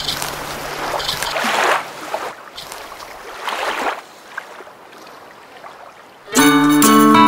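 Sea surf washing in and ebbing in slow swells. About six seconds in, loud music with sustained tones starts.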